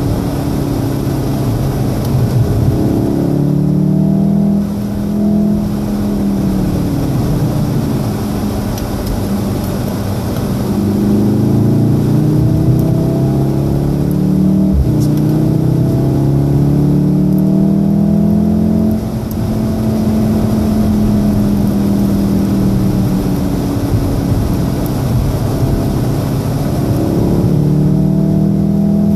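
Inside the cabin of a 2014 Volkswagen Golf VII R, its 2.0-litre turbocharged four-cylinder engine climbs in pitch as the car accelerates, then falls back, several times over. Underneath is a steady hiss of tyre and road noise.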